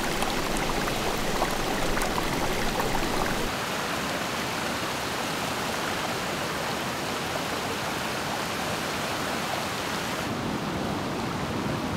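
Steady rushing of flowing water, an even hiss with no distinct splashes. Its deepest rumble drops away a few seconds in and its brightest hiss fades near the end.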